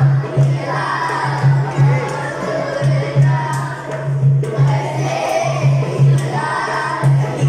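Dance music with a steady bass beat, with a group of children shouting and cheering over it.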